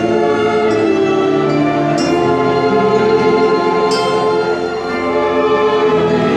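Church orchestra playing an instrumental passage of sustained, slowly changing chords, with brief bright accents about two and four seconds in.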